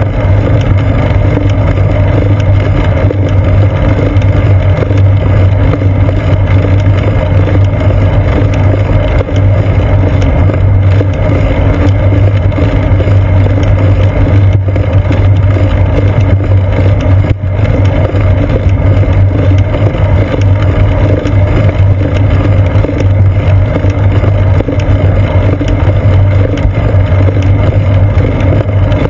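Steady, loud low rumble and hum of a bicycle rolling on pavement, picked up by a camera on the seat post: tyre and road vibration carried into the mount, mixed with wind noise from riding.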